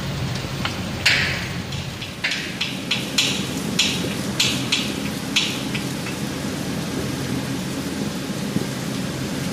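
Water spraying from a leaking 4-inch pipe flange, a steady rain-like hiss. Through the first half comes a string of about nine sharp metallic clinks from a wrench working the flange bolts.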